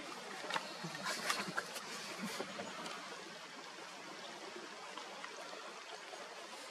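Steady, faint rush of running water, with a few light clicks in the first couple of seconds.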